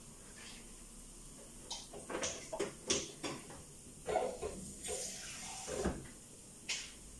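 A string of small knocks, clinks and rustles from kitchen items being handled on a worktop, clustered from about two to six seconds in.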